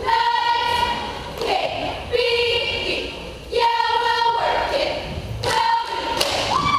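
Cheerleading squad chanting a cheer in unison: high, drawn-out shouted words about every second and a half, with sharp hits in the gaps between them.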